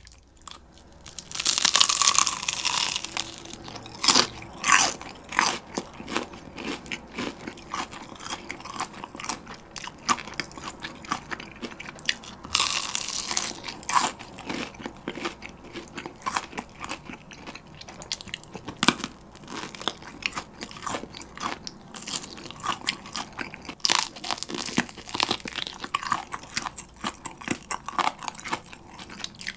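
Bites into and chewing of Kyochon Rice Chicken, a very crispy rice-coated fried chicken drumstick. There is a loud crunching bite about a second and a half in, more big crunching bites every few seconds, and crisp chewing crackles between them.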